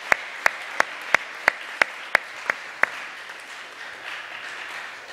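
Audience applauding, with one person clapping close by at about three claps a second until nearly three seconds in; the applause then dies away.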